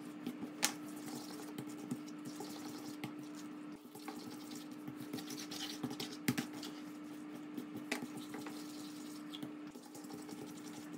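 Dough being divided and shaped by hand on a silicone baking mat: a few light taps as a plastic bench scraper cuts the dough log against the mat, and soft rubbing as the pieces are rolled into balls, over a steady faint hum.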